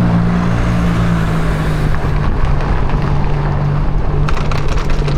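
A ridden small electric vehicle: a steady low motor hum over rushing noise, with a few sharp rattles near the end.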